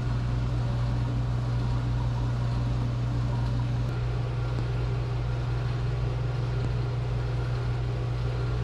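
Steady low mechanical hum with an even hiss above it, unchanging throughout.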